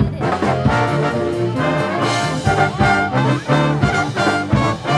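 Big band of saxophones, trumpets and trombones playing together with a drum kit keeping the beat, the brass section prominent.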